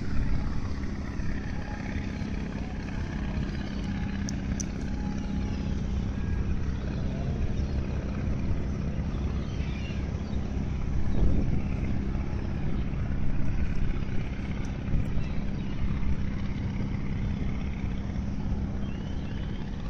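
Steady low engine drone of a passenger boat under way, with a constant low hum and an even wash of noise over it.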